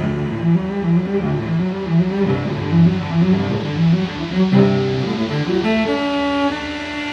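Instrumental background music: a low string line of moving notes, with held higher notes coming in near the end.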